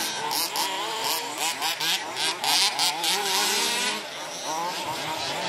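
Several radio-controlled 2WD off-road buggies racing, their motors whining in overlapping pitches that rise and fall with the throttle.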